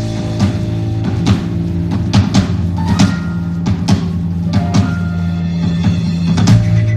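A live band playing instrumental music: drum and percussion hits land over a sustained low bass note, with a few higher held notes from keyboard or strings.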